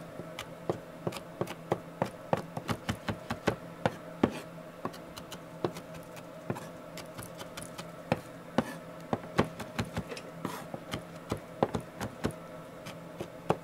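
Chef's knife chopping red chili pepper on a wooden cutting board: a run of sharp, irregular knocks of the blade against the wood, a few a second, with short pauses between bursts.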